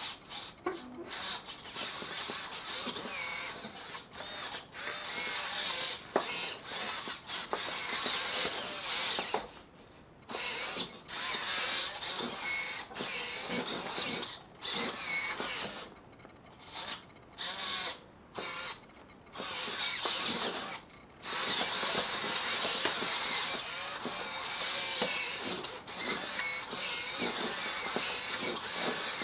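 High-torque servo motors and a geared stepper motor in a robotised Baby Born doll whirring as they drive its limbs and head. The whirring comes in stop-and-start runs separated by short pauses.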